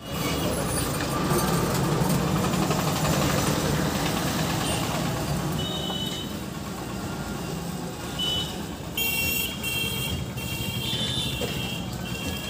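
Traffic, with a vehicle engine running steadily. From about halfway, short high beeps repeat, coming regularly near the end.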